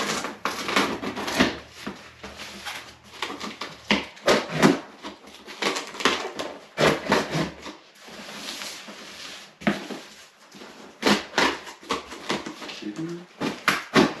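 Packing tape on a cardboard box being cut open with the lip of an airsoft AK magazine: irregular scraping and tearing strokes across the tape, with the box scuffing and knocking on the counter as it is turned.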